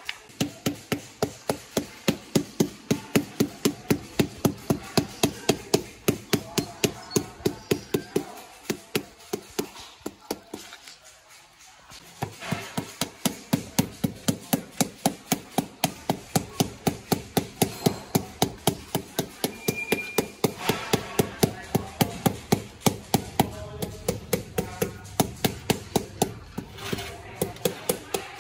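Rubber mallet tapping ceramic floor tiles down into a mortar bed, a rapid, even run of knocks about four a second, bedding and levelling each tile. The tapping stops for a few seconds near the middle, then carries on.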